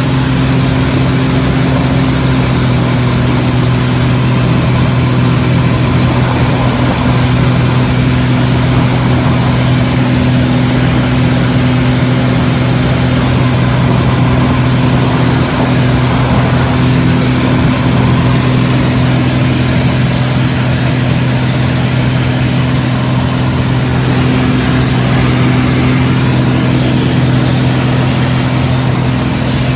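Pitts aerobatic biplane's engine and propeller heard from inside the cockpit in flight: a loud, steady drone with a rush of air over it.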